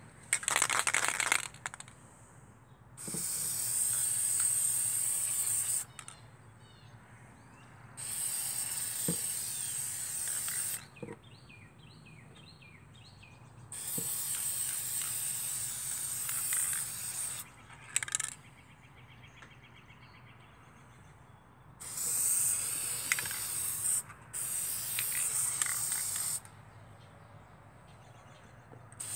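Aerosol spray-paint can hissing in repeated bursts of two to three seconds, about six times, with short pauses between sprays.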